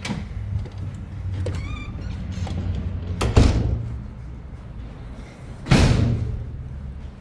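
A heavy building door being opened with a brief squeak, then two heavy thuds about two and a half seconds apart as the door swings shut.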